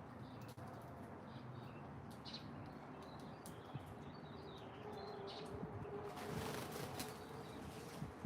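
Birds chirping in short, scattered calls over a faint steady hiss, with a louder rush of noise for about a second around six seconds in.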